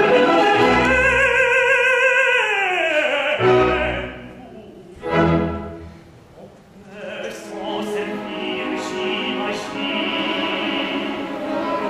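An operatic tenor sings a long, loud note with vibrato over the orchestra, sliding downward a little after three seconds. After a brief lull the orchestra carries on with sustained chords.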